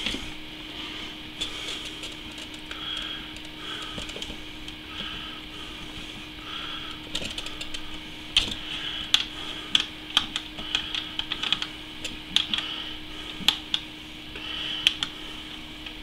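Small plastic clicks and taps from hands screwing down a compression fitting on vinyl tubing at a water-cooling block, thickening into a run of sharp clicks from about seven seconds in. A steady low hum runs underneath.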